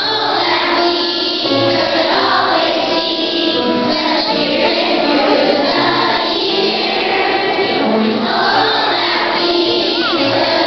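Children's choir singing a Christmas song, with instrumental accompaniment playing steady bass notes beneath the voices.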